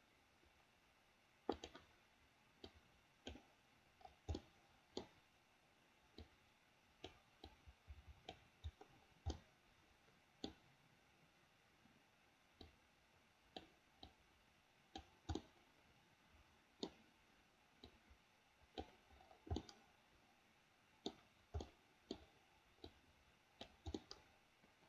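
Computer mouse button clicking: short single clicks at irregular intervals, from a fraction of a second to about two seconds apart.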